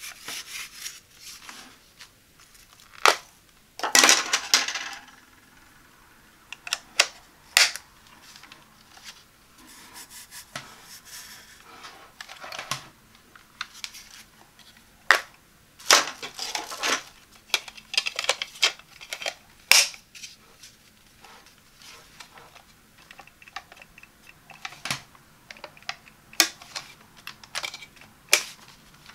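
Hard plastic clicks, taps and scrapes as a handheld garment steamer is handled and its brush and lint-pad attachments are fitted and removed. About a dozen sharp clicks are scattered through, with longer rubbing scrapes about four seconds in and again around sixteen seconds.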